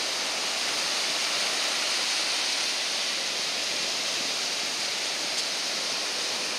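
Surf on a beach: small waves breaking and washing over the shallows in a steady rush of water.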